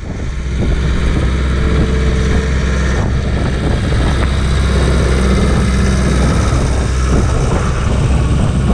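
New Holland TL75E tractor's diesel engine running steadily under load while pulling a 22-disc offset harrow through unbroken ground. Irregular knocks and rattles from the harrow's discs and frame sound over the engine.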